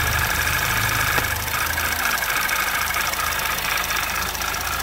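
Audi 2.0 TFSI four-cylinder engine idling with a low rapping noise that takes on a pulsing sweep as the oil filler cap is screwed back on. The owner takes the noise most likely for a noisy vacuum pump, which vents into the crankcase, and suspects the high-pressure fuel pump's roller tappet as another possibility.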